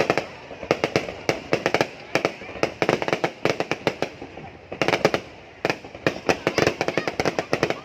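Fireworks going off in quick succession: dense, irregular crackling pops and bangs, several a second, with a heavier cluster about five seconds in.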